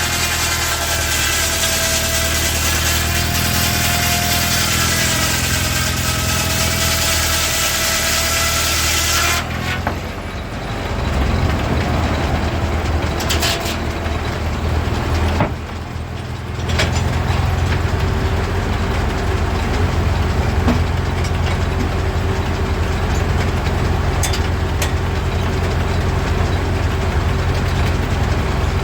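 Old engine-driven machinery running. For the first nine seconds or so a steady hiss and a wavering whine ride over the engine's rumble; then the sound changes abruptly to a steady low engine rumble.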